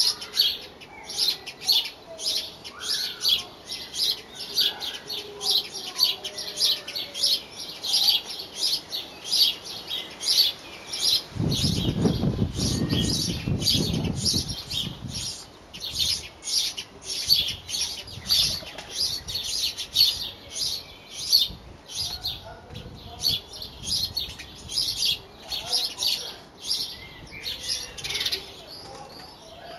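Songbird chirping over and over in a quick, even series of short high chirps, about three or four a second. A low rumble from about 11 to 15 seconds in is briefly the loudest sound.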